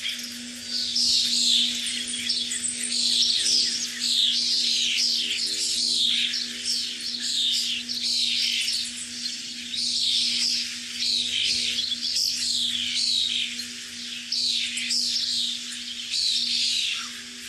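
Many birds chirping and chattering in a dense, continuous chorus of quick high calls, over a faint low steady hum.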